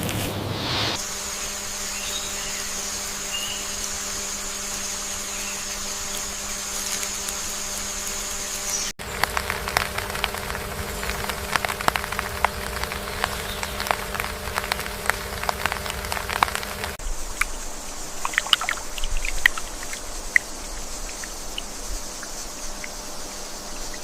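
Running stream water trickling and pouring, with a steady low hum underneath. Through the middle of the stretch come many small splashes and drips, before the sound cuts to calmer flowing water.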